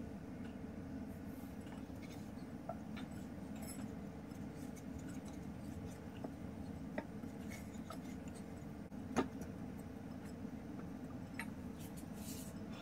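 Hand kneading soft dough in a glass mixing bowl, with scattered light clicks and knocks against the glass, one sharper knock about nine seconds in, over a steady low hum.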